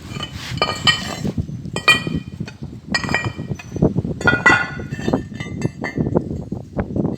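Steel parts clinking and clanking as they are handled, a series of ringing metallic knocks, the clearest about one, two, three and four and a half seconds in.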